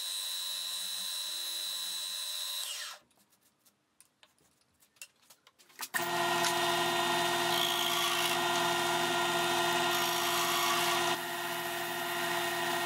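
Sieg milling machine spindle running steadily with a high whine as an engraving cutter marks the dial graduations, cutting off about three seconds in. After a few seconds of faint clicks, a lathe starts running steadily and louder, spinning the small steel dial while an abrasive pad is held against it.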